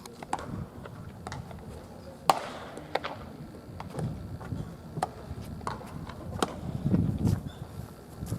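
A baseball smacking into a catcher's leather mitt on a warm-up pitch: one loud sharp pop about two seconds in, with fainter knocks and clicks scattered around it.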